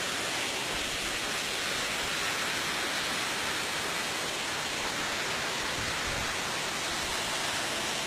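Steady rushing of a waterfall, water cascading over rock ledges as an even, unbroken hiss.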